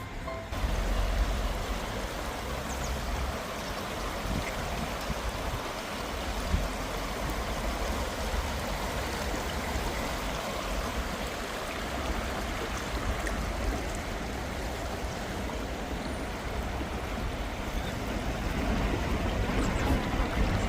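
Stream water flowing steadily, with a low rumble underneath.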